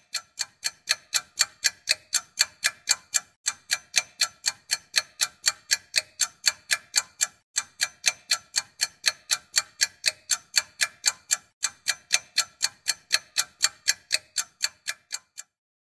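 Clock ticking sound effect: a steady run of sharp, ringing ticks at about four a second. It starts and stops cleanly, with dead silence on either side.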